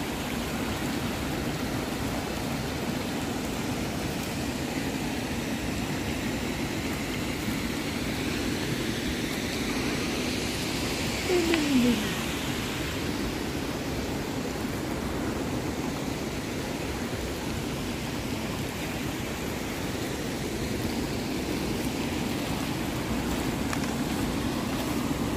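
Steady rushing of water in a gorge stream. A brief falling sound cuts through about halfway in.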